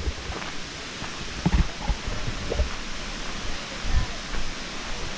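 Steady rushing roar of a waterfall some distance off, with a few irregular low thumps.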